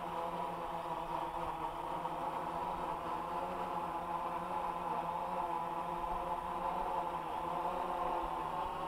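AEE AP10 Pro quadcopter's propellers whining steadily as it hovers, a steady hum of several pitches.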